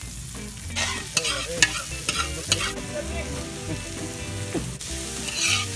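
Banana heart with onion and garlic sizzling in hot oil as it is sautéed and stirred. A spatula scrapes and clatters against the pan again and again, busiest near the end.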